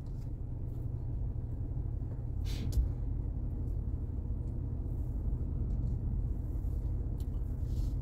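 Steady low rumble of a car on the move, heard from inside the cabin, with a short knock about two and a half seconds in.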